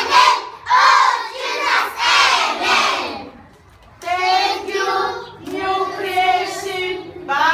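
A group of young children calling out together in unison, in several short phrases, with a brief pause about three seconds in.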